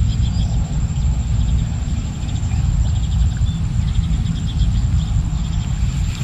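Low, steady wind rumble on the microphone, with short runs of faint quick ticking from a baitcasting reel being cranked to retrieve the line.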